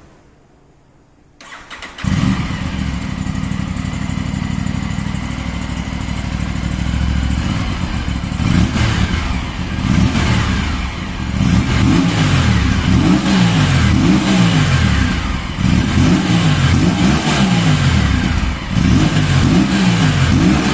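Aprilia RS 457 parallel-twin engine starting up about a second and a half in and idling. From about eight seconds in it is revved in a run of quick throttle blips, each rising and falling in pitch.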